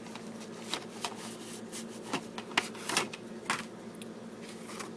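Paper cover sheet being handled and slid out of a plastic DVD case: a run of short rustles and crackles of paper against plastic, thickest around the middle.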